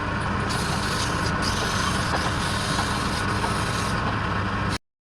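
Wood lathe running steadily with a low hum, the turning noise steady throughout; it cuts off suddenly near the end.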